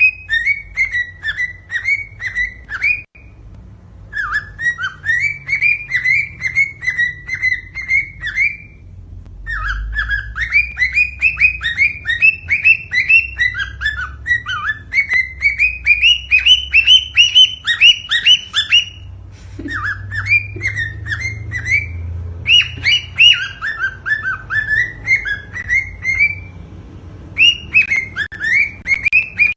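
Cockatiel singing: runs of quick, repeated whistled chirps that rise and fall, in phrases of several seconds broken by short pauses.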